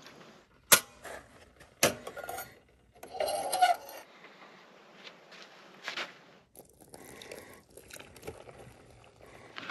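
Camp dishes and utensils clinking and knocking as they are handled on a picnic table. There are sharp knocks about one and two seconds in, then scattered quieter clatter.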